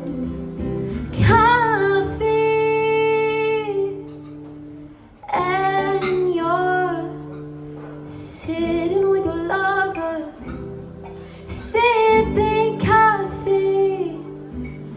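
A woman singing a song live with acoustic guitar accompaniment, holding one long note about two seconds in before several shorter sung phrases.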